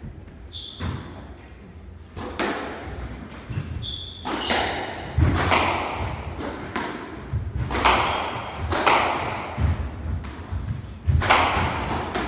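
Squash ball struck by rackets and cracking off the court walls in a rally, starting about two seconds in with a shot roughly every second, each echoing in the court. Short high squeaks of court shoes on the wooden floor are heard between the shots.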